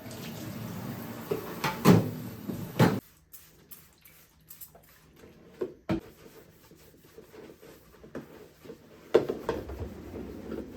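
Kitchen tap running, then shut off about three seconds in, followed by scattered light clicks and knocks of things being handled, with another short spell of handling near the end.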